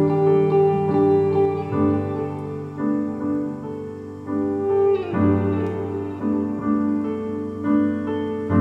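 Slow piano music with sustained chords, played over hi-fi loudspeakers driven by a rebuilt Dynaco SCA-80Q integrated amplifier.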